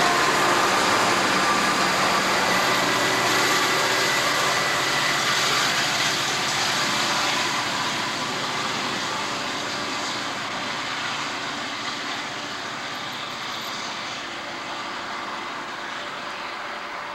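Southern Pacific diesel locomotives under load passing and pulling away up a steep grade, engine and wheel-on-rail noise fading gradually as they recede.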